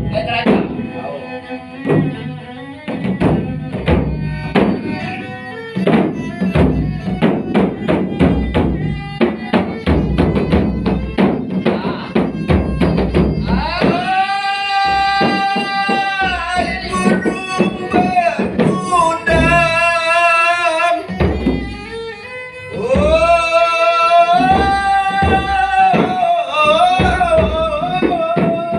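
Traditional Malay dendang music: a fast hand-drum rhythm for the first half, then long held melody notes with a wavering pitch come in about halfway through, break off briefly, and return over the drumming.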